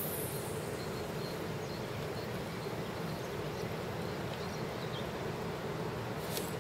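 Spinning reel cranked steadily to retrieve a spoon lure after a cast, a low continuous whirring over outdoor hiss, with a few sharp clicks near the end.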